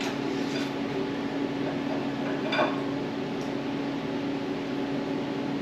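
Steady machine hum holding one even pitch, with a single light clink about two and a half seconds in.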